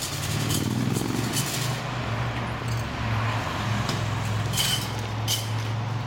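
A motor vehicle engine running at low speed with a steady low hum, rising briefly in pitch about a second in, with a few short sharp clicks scattered through.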